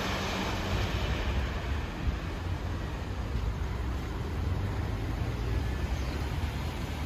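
Steady low rumble of road traffic on wet streets, with a hiss of noise above it.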